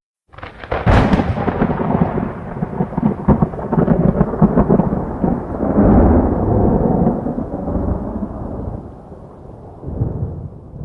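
Thunderclap: a sharp crack about a second in, then a long rolling rumble with crackles that slowly fades toward the end.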